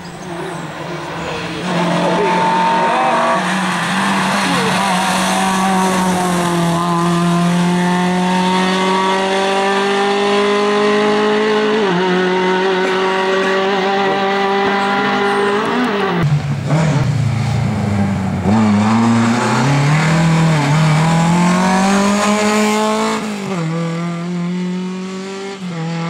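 Lada 2107 rally car's four-cylinder engine run hard at high revs. The pitch climbs slowly and drops at a gear change about twelve seconds in. Later it dips and rises several times as the throttle comes off and on through bends.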